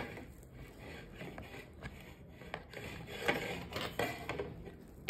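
A table knife cutting through a moist, juice-soaked sponge cake in a plastic cake carrier: soft scraping and rubbing, with a sharp click at the start and a few light clicks of the blade against the plastic.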